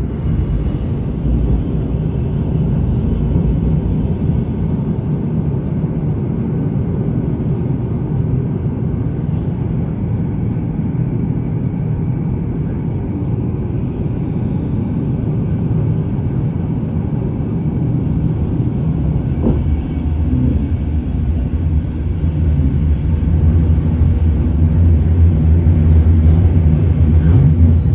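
Steady low rumble that swells a little over the last several seconds.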